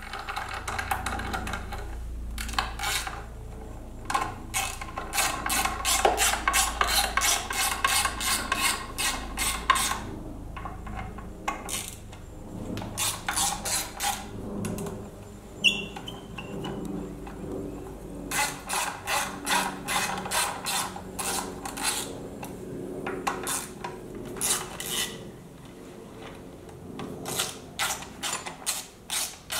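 Hand ratchet clicking in several runs of quick, evenly spaced clicks, with pauses between, as T27 Torx fasteners are backed out of an air cleaner backing plate. Metal parts are handled and rubbed between the runs.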